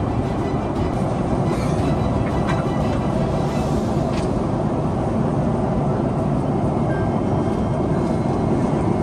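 Steady, loud rumble of a jet airliner heard from inside the cabin, with a few faint clicks or knocks in the first few seconds.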